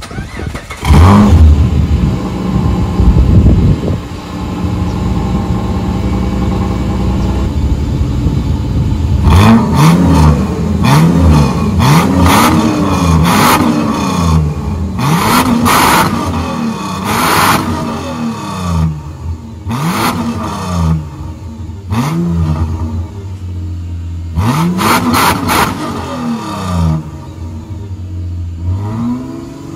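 Mitsubishi Pajero's 3.8-litre 6G75 V6 heard at the tailpipe. It starts about a second in and settles to idle. From about ten seconds in until near the end it is blipped again and again, each rev rising and falling in pitch. The engine has worn valve stem seals that make it smoke.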